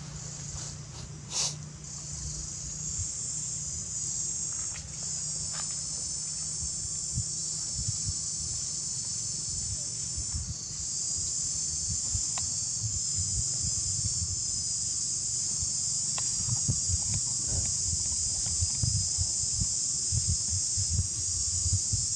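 A chorus of insects buzzing steadily at a high pitch, growing louder about ten seconds in.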